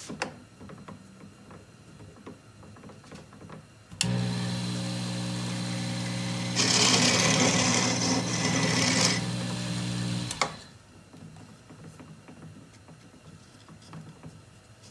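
Benchtop mini lathe motor switched on, running with a steady hum for about six seconds, then switched off. In the middle, for about three seconds, the cutting tool takes a light cut on the spinning wooden cue-shaft tenon and adds a loud hiss, skimming a little more off after a snug test fit. Light handling clicks before and after.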